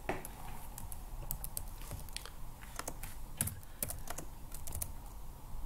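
Typing on a computer keyboard: irregular single keystrokes, spaced unevenly, fairly quiet.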